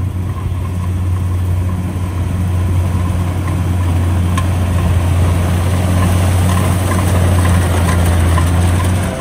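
Kubota rice combine harvester's diesel engine running steadily while it cuts standing rice, with a strong low hum that grows slowly louder as the machine comes closer.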